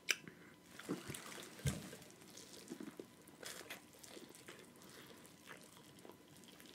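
Quiet, wet eating sounds from eating corn from a seafood boil: chewing and lip smacks, with scattered small clicks and a low thump about a second and a half in.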